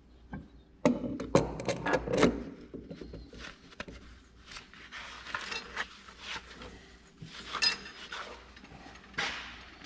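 Steering gear on an Oliver 1650 tractor being worked by hand into its power steering box housing, meshing with the rack: a quick run of metal clanks about a second in, then scattered clinks and scrapes of metal on metal.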